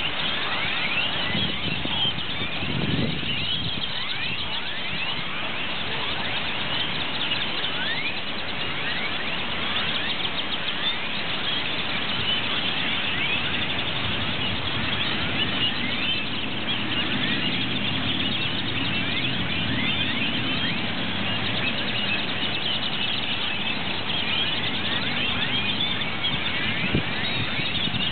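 A huge flock of purple martins keeps up a dense, continuous chorus of overlapping chirps as it gathers at its roost. A low rumble sits underneath and grows stronger in the middle.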